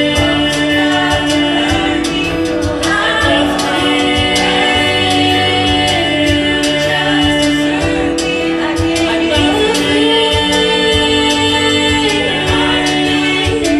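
Female show choir singing held harmonies over a live band accompaniment with bass and drums.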